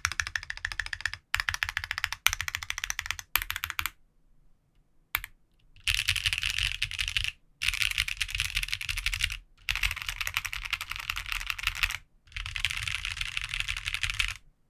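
Leaf 65 mechanical keyboard with lubed Salmon switches, an aluminium plate and GMK keycaps, typed on in runs of fast keystrokes. The first few seconds are presses on the larger modifier keys on lubed C3 stabilizers. After a pause of about two seconds, the alpha and number keys are typed in quicker, denser runs.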